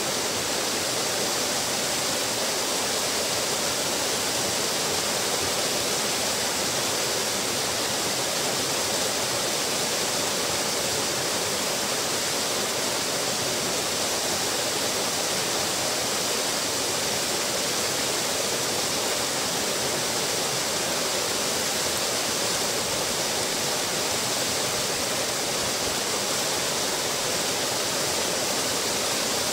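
Small waterfall spilling over a stone weir and splashing into a pool: a steady, even rush of falling water with no breaks.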